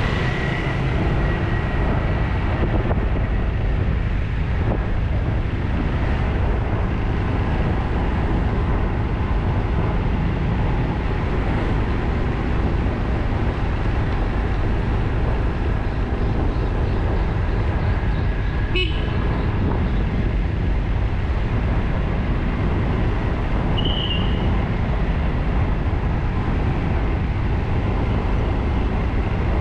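Steady road and traffic noise heard from a motorcycle riding along a town street, with a deep rumble underneath. There is one sharp click about two-thirds of the way in, and a short, high horn toot a few seconds later.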